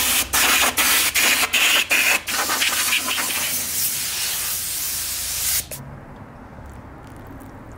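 Hand spray bottle spraying wax and grease remover onto a wheel rim: a rapid run of short sprays, then a steadier hiss that stops about five and a half seconds in.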